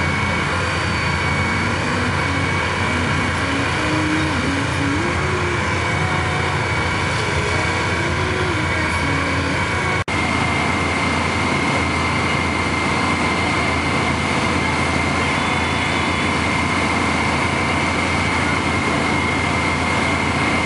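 Hot-water ice-drilling machinery running steadily: a continuous engine-like drone with a low hum and a thin, high, steady whine.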